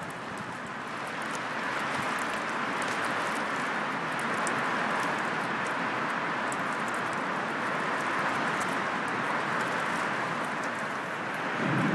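Steady rushing of a rain-and-wind storm heard through a window, with many small ticks running through it. A low rumble swells near the end.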